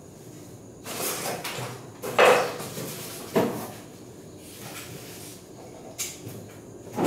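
Several irregular knocks and clunks over quiet room hiss, the loudest about two seconds in.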